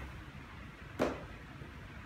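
Cardboard drone packaging being handled, with one short knock about a second in, over a steady low background hum.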